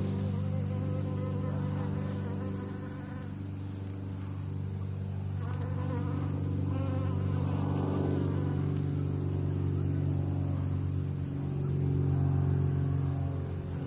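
Honeybees buzzing in flight at close range: a steady wing hum whose pitch wavers as the bees move about, swelling louder about twelve seconds in.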